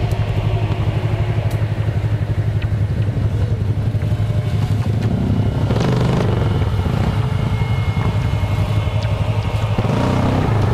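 ATV engine running at low revs, with a fast, even firing pulse, as the quad crawls over rocks in a creek bed. The revs rise briefly about six seconds in and again near the end.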